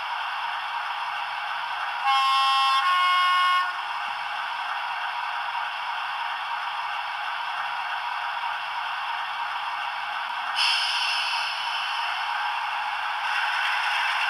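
Sound-fitted model diesel locomotive playing engine sound through its onboard speaker, with a steady running hum throughout. About two seconds in it sounds a two-tone horn, one note and then a lower one. About ten seconds in, the engine sound steps up, brighter and louder.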